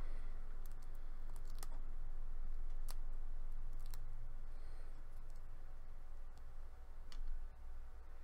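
Jiggly slime with red pieces being squeezed and kneaded by hand: scattered soft clicks and small pops, over a low steady hum.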